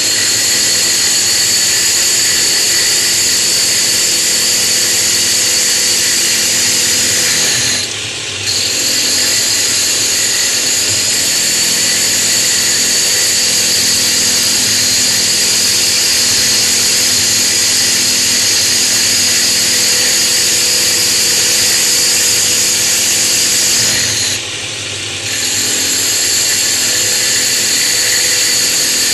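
Drill press spinning a hole saw bit, used as a mill to grind down the face of a wet natural stone tile: a steady, loud, high grinding. Twice, about 8 seconds in and again near 24 seconds, the grinding eases for under a second while the motor keeps running.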